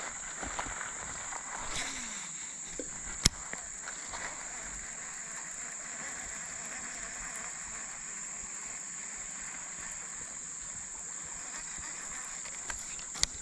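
Creek-side outdoor ambience: a steady high-pitched insect drone over faint running water, with a single sharp click about three seconds in and a couple of small clicks near the end.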